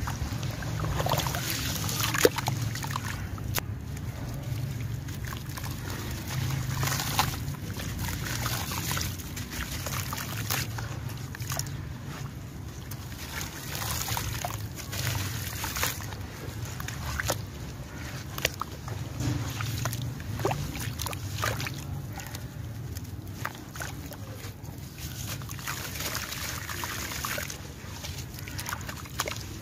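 Hands sloshing and swishing through a basin of muddy water while crushing soaked sand-cement chunks, with irregular gritty crackles and splashes as pieces and grains crumble back into the water.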